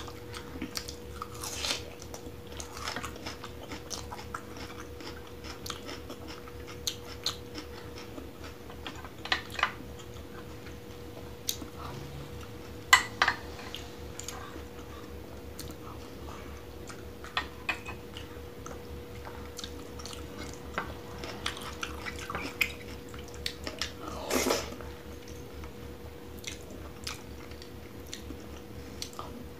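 Close-miked eating with the hands: chewing with wet mouth clicks and smacks on rice mixed with chicken curry gravy, and fingers squishing the saucy rice on a plate. Scattered sharp clicks, the loudest about thirteen seconds in, over a faint steady hum.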